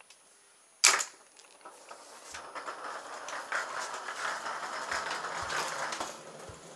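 A sharp snap as the mousetrap car's release mechanism lets the trap arm go. Then a steady rattle with fine ticks rises as the car's CD wheels roll across a tiled floor, with footsteps following about twice a second near the end.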